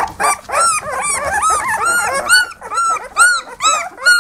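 A litter of newborn Belgian Malinois puppies crying together: many high, arching cries overlap at first, then fall into a more regular run of separate cries, about two or three a second.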